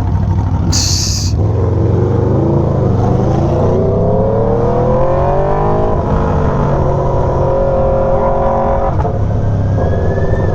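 Aprilia Tuono V4's V4 engine pulling in traffic: its pitch climbs as it accelerates, drops sharply at a gearshift about six seconds in, then holds steady. A short hiss comes about a second in.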